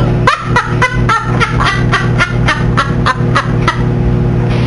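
Person laughing in a rapid run of about a dozen short pulses, ending about a second before the end, over the steady hum of a running microwave oven.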